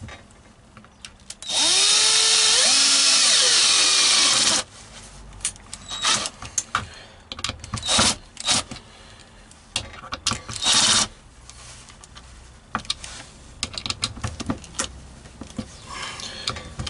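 Cordless drill-driver driving screws through a dome CCTV camera's mounting base into a wooden plank. There is one run of about three seconds whose pitch rises as the motor speeds up, then several short bursts with small clicks of handling between them.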